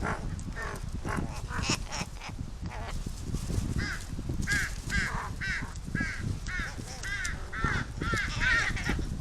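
Large-billed crows cawing: scattered calls at first, then a steady run of hoarse calls about two a second through the second half. Strong wind rumbles on the microphone underneath.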